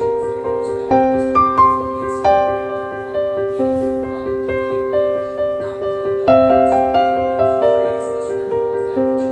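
Background piano music: gentle held notes and chords that change every second or so.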